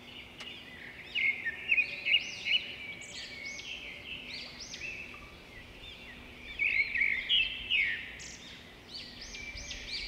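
Small songbirds chirping and twittering, many quick high arching notes overlapping one another, louder in two spells about a second in and about seven seconds in.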